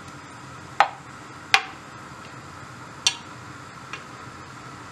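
Four short, sharp taps of fingers and chopped onion against a ceramic pot as the onion is spread out in oil, over a faint steady hum.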